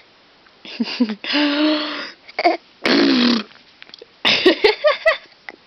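Raspberries blown with the lips against a baby's nose: two spluttering lip buzzes, the first about a second in and the second about three seconds in. A quick run of short voice sounds follows near the end.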